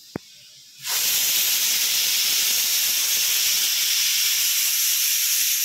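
Aluminium stovetop pressure cooker venting steam: a loud, steady hiss that starts suddenly about a second in, after a single short click.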